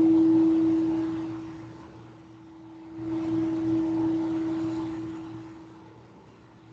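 Singing bowl holding one steady low tone that swells and fades in slow waves: loud at first, dying away, then swelling again about three seconds in.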